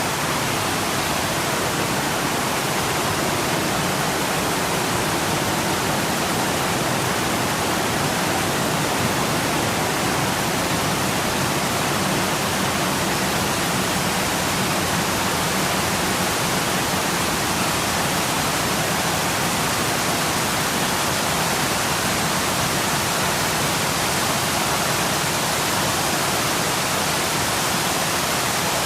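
Waterfall: a steady, even rush of falling water that fades in at the very start.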